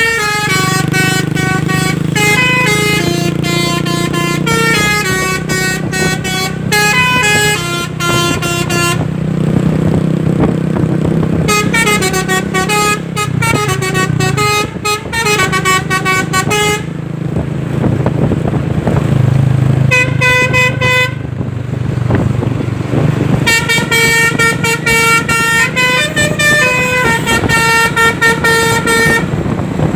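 Telolet basuri truck horn, a multi-tone musical air horn, playing a melody in quick stepped notes, in four phrases with short pauses between. A steady low engine rumble runs underneath.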